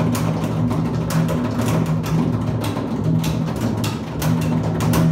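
Two double basses playing low held notes that shift in pitch every second or so, with scratchy clicks over them throughout.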